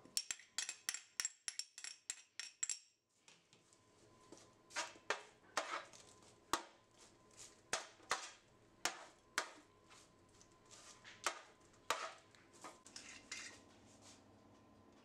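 Kitchen dishes and utensils being handled, click after click. It opens with a quick run of sharp clicks with a bright ringing edge for about three seconds. After a short pause come lighter clicks and knocks about twice a second, which die away near the end.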